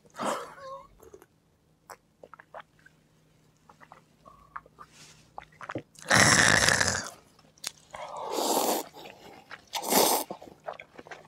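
Close-up eating sounds: small clicks of chopsticks and chewing, then noisy slurps of noodles from a paper cup near the end. A loud breathy rush comes about six seconds in.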